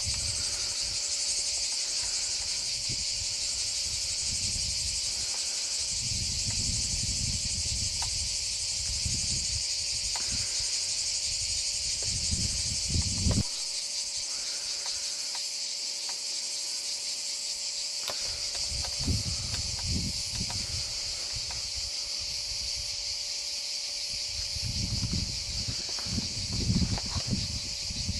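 A steady, dense chorus of cicadas chirring, with gusts of wind buffeting the microphone now and then.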